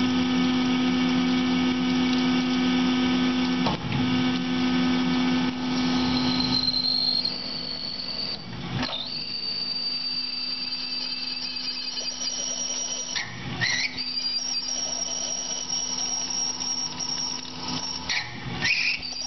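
Tormach PCNC 1100 mill spinning 303 stainless steel stock against a half-inch cobalt drill under flood coolant: a steady low machine tone at first, then, about a third of the way in, a high steady squeal from the cut that briefly dips in pitch three times. The speaker calls it a little squeaky and hopes the chatter is not hurting tool life.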